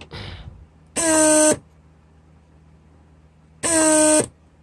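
Repaired Mercedes S-class central-locking pneumatic pump running on a bench test in two short bursts, about two and a half seconds apart. Each burst is a loud, steady buzzing whine that drops in pitch as the motor stops, as the lock circuit is cycled to lock and unlock.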